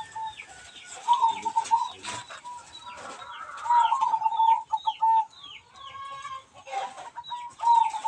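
Zebra doves (perkutut) cooing in a breeding aviary: repeated runs of quick, short notes, over high, rapid chirps from other birds. A few sharp clicks of the wire nest basket being handled are mixed in.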